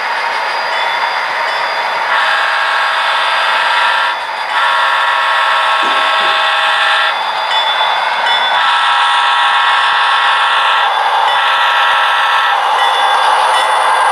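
Model diesel locomotives with onboard sound working hard up a steep grade, their engine sound running steadily while a horn chord sounds in several blasts of about two seconds each.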